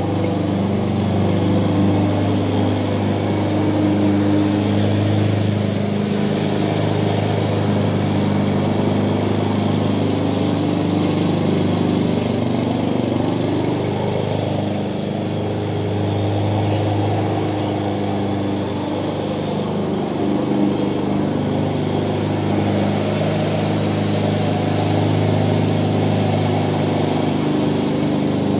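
Walk-behind gas lawn mower engine running steadily under load as the mower is pushed back and forth across the grass.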